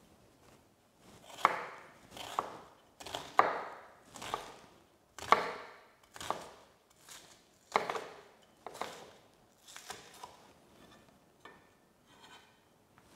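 Chef's knife chopping onion and garlic on a wooden cutting board: sharp knocks of the blade on the wood, about one a second, growing lighter near the end.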